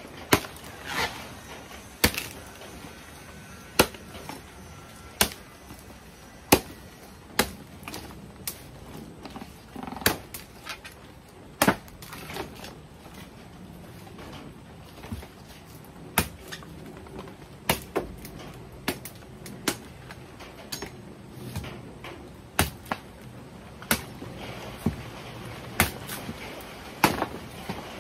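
Machete chopping dried coconut palm frond stalks into firewood: sharp whacks of the blade into the wood, about one every second, at an uneven pace.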